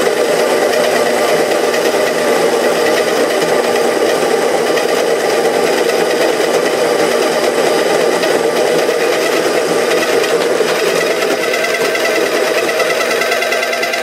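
Baratza Encore ESP electric conical burr coffee grinder running steadily as it grinds whole coffee beans. In the last few seconds its tone changes to a clearer, rising whine as it reaches the end of its grind cycle and the beans run out.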